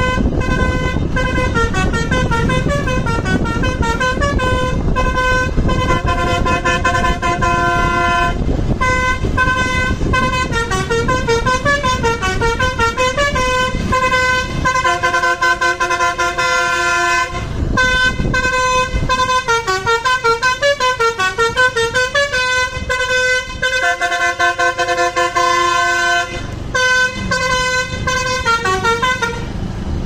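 Basuri V3 multi-tone 'telolet' bus horn playing quick melodic tunes, note after note, with a few short breaks, over the low rumble of a passing coach.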